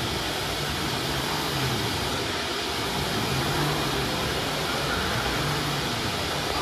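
CIMTECH ATC CNC router running with no workpiece, its gantry traversing the empty bed: a steady whirring hiss with a low motor hum that comes and goes in short stretches.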